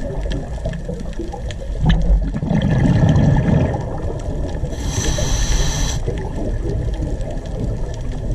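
Underwater ambience picked up by the camera: a steady low rumble of water with gurgling, swelling louder about three seconds in, then a brief hiss about five seconds in.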